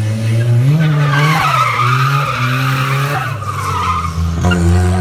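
Car engine revving hard as the rear tyres squeal and screech through a drift on asphalt. The tyre screech starts about a second in and cuts off after about four seconds, while the engine revs rise and fall.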